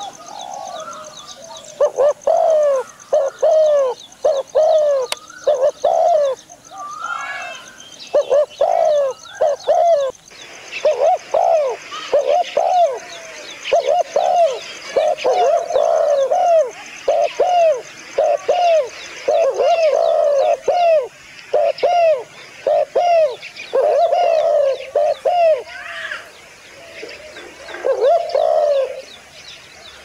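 Spotted dove cooing: short phrases of low, repeated coo notes with brief pauses between them. Higher-pitched chirps from other small birds join from about a third of the way in.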